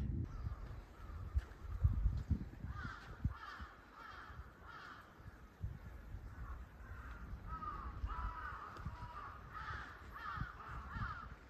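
A crow cawing, a long run of short harsh calls one after another, over low bumps and rumble on the microphone.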